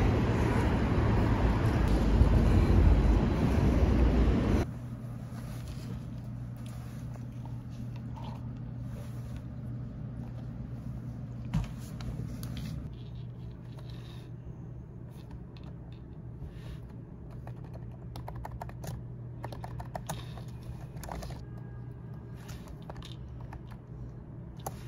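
Wind rushing over the microphone for about the first four and a half seconds, cutting off abruptly. Then a computer keyboard being typed on, with many quick key clicks over a low steady hum.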